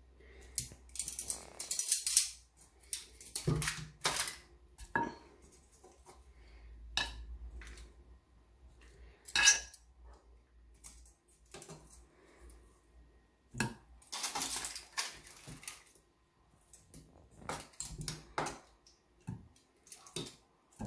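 Metal kitchen tongs clinking and scraping against a baking tray and a ceramic plate as roasted chicken drumsticks are lifted out and set down. The clatter comes in irregular bursts, with a few louder clanks.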